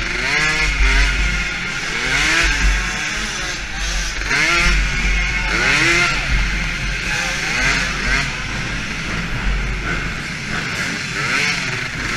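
Small DRR 50 youth quad's engine, heard from a camera on the quad, revving up and dropping off again and again as the throttle is worked. A deep rumble runs underneath.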